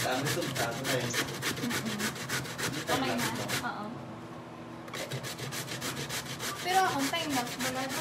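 Peeled cassava root scraped up and down a stainless steel box grater in rapid, even rasping strokes, about five a second, with a pause of about a second midway before the grating starts again.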